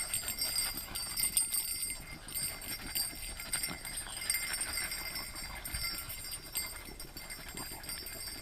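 Steady high-pitched insect chorus with several overlapping tones, over scattered light clicks and rustles.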